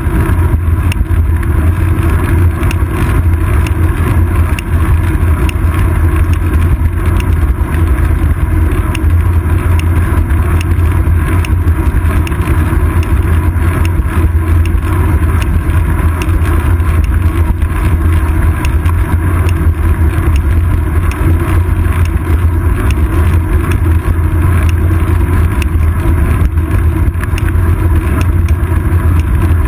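Wind and road noise from a bicycle rolling along a paved road, picked up by a seat-post-mounted camera: a loud, steady low rumble with a scatter of small ticks throughout.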